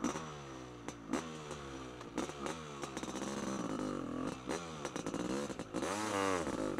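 Honda CR500's two-stroke single-cylinder engine on throttle, its pitch rising and falling again and again in short blips, with a longer rise and drop near the end. A few sharp knocks come through between the revs.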